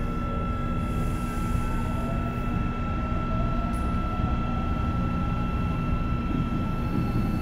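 Running noise inside a new Korail Seoul Subway Line 1 electric train car: a steady low rumble of the wheels on the track, with a steady high electrical tone and faint whines slowly gliding in pitch.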